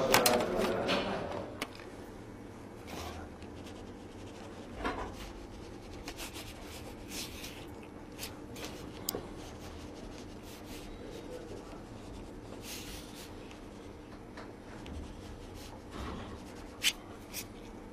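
Quiet room tone with a faint steady hum, scattered soft rustles and ticks, and two sharper clicks near the end.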